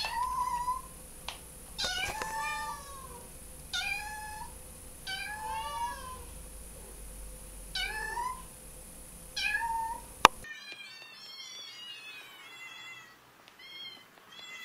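Young ginger kitten meowing repeatedly: about six loud, separate mews, each rising then falling in pitch. About ten seconds in a sharp click breaks in, and fainter, thinner mews from a second kitten follow.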